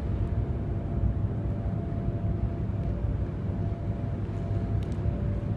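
Steady low mechanical rumble with a faint, even hum above it.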